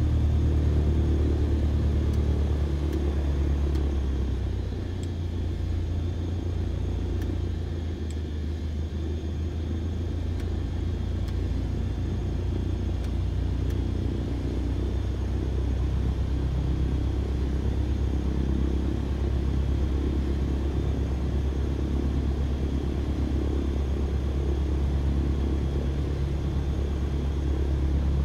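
Car driving: a steady low rumble of engine and road noise, easing a little about five seconds in and building back up.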